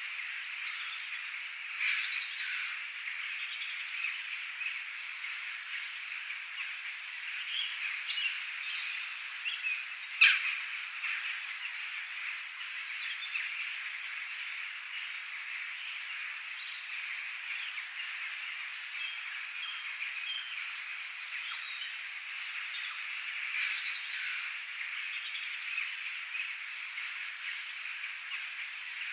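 Steady hiss of rain with birds chirping and calling here and there. Two sharp, louder clicks come about two seconds in and again about ten seconds in.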